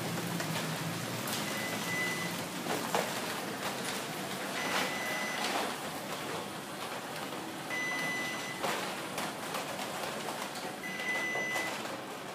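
Steady rain during a thunderstorm, with a short high electronic beep sounding four times, about every three seconds.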